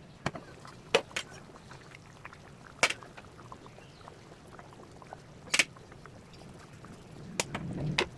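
Cooking sounds: scattered sharp clinks and knocks of kitchen utensils, about seven over several seconds, over a faint steady background that grows a little louder near the end.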